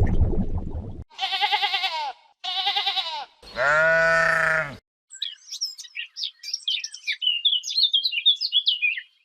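Bleating farm animal: two quavering bleats about a second each, then a longer, steadier call. From about five seconds in, a small bird chirps in quick, high notes.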